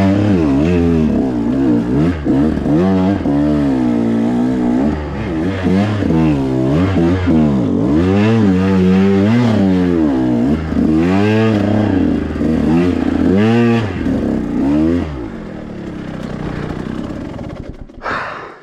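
2021 KTM 125 XC two-stroke single-cylinder dirt bike engine revving up and down in short, quick bursts while the clutch is slipped to crawl over rocks, with some clatter. About fifteen seconds in the revving falls away to a low, quieter running.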